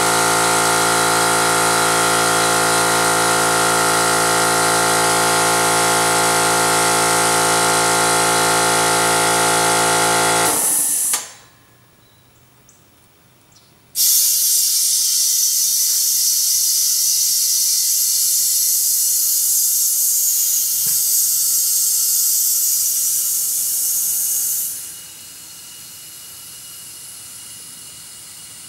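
Small air compressor's motor running steadily with air hissing, stopping suddenly about ten seconds in. After a short lull a loud hiss of air returns on its own for about ten seconds, then drops to a quieter hiss, as air is forced into a lawn mower tire that has not yet sealed on its bead.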